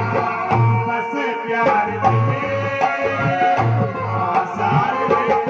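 Live music amplified through a PA system: a hand drum keeps a steady beat of deep strokes under a sustained melodic line, with a man singing into a microphone.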